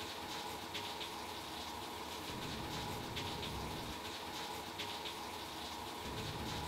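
Water running steadily in a bathtub, a low even rush with a few faint ticks.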